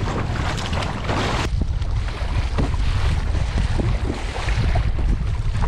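Wind buffeting the camera microphone with a heavy low rumble, over irregular splashing of choppy sea water and paddle strokes against a kayak being paddled.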